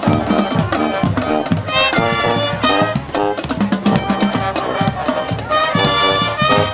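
High school marching band playing live, with brass and sousaphones over a steady drum beat. The brass swells into held chords about two seconds in and again near the end.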